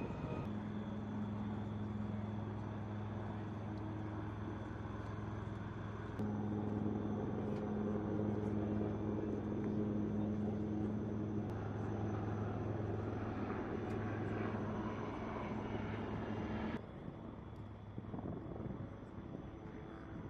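Steady engine drone on an airfield flight line, with a constant low hum over a rushing noise. It grows a little louder about six seconds in and cuts off abruptly near the end, leaving quieter open-air noise.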